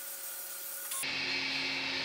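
Steady hissing noise from a cylinder-head pressure-testing stand, the head clamped under water in its test bath. About halfway through the sound changes abruptly, losing its highest hiss and gaining a low hum.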